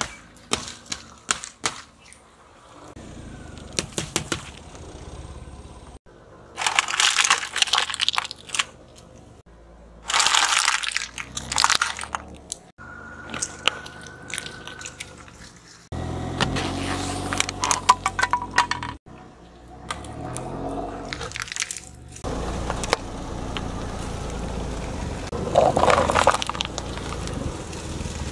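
Car tyres rolling over and crushing small objects one after another: plastic-wrapped ice pops and plastic toys cracking, crunching and popping. The crushes come as several separate bursts a few seconds each, with sudden breaks between them.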